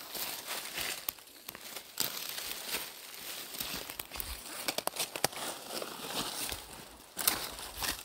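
Footsteps crunching through dry fallen leaves: a crisp, irregular crackling rustle.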